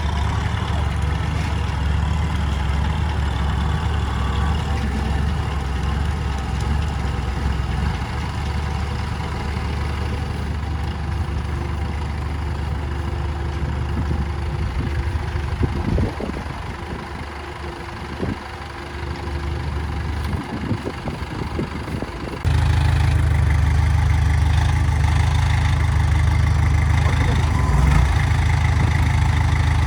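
Heavy diesel engine of a bulldozer or tractor running steadily. It eases off for a few seconds in the middle, then cuts abruptly to a louder, deeper engine sound about two thirds of the way through.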